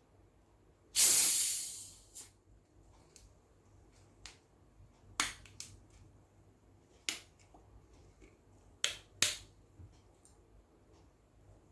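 A 500 ml plastic Pepsi bottle twisted open: a short hiss of escaping carbonation about a second in, fading over about a second. A few sharp clicks follow, two of them close together near the end.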